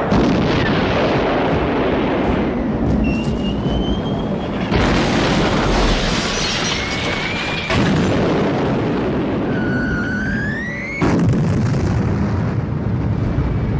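Air-raid sound effects of bombing: a continuous rumble of blasts, and three times a whistle that rises in pitch and is cut off by a sudden loud boom.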